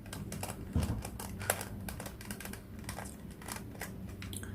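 Plastic 3x3 Rubik's cube being turned by hand: an irregular run of light clicks and clacks as its layers are twisted.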